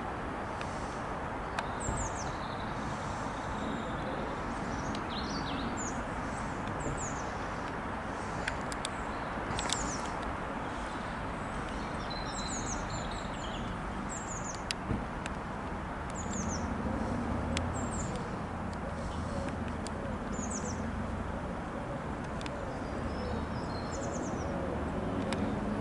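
Steady, distant jet rumble of a British Airways Airbus A320neo with its Pratt & Whitney geared turbofans descending high overhead, while small birds chirp repeatedly in short, high, quick calls.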